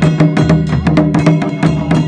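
Folk drumming on a double-headed barrel drum (dhol), rapid strokes several a second, over a steady held melody line.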